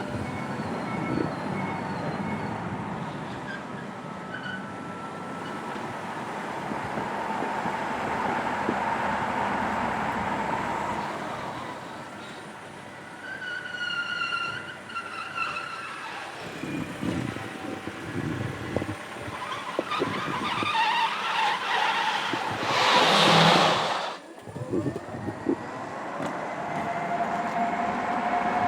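Electric car's tyres squealing on the painted floor of an underground car park, in a series of short pitched chirps and screeches. About 23 seconds in comes the loudest, a harsh skid that cuts off sharply.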